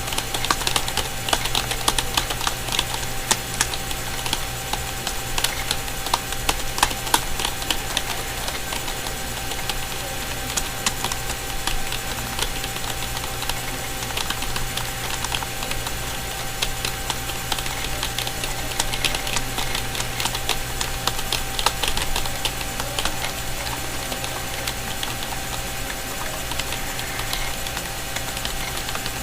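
Typing on a Dell KB212-B membrane keyboard: a fast, irregular stream of key clicks that comes in thicker runs, over a steady low hum.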